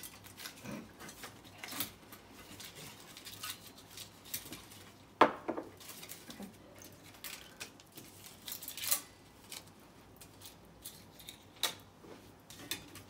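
Small objects being handled and set down on a desk: scattered clinks, taps and knocks, with one sharper knock about five seconds in.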